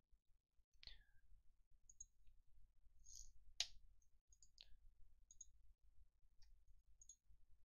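Faint computer mouse clicking: about eight short, irregularly spaced clicks, the loudest about three and a half seconds in.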